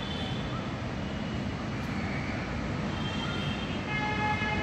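Steady rumble of road traffic, with short pitched tones sounding about three seconds in and again near the end.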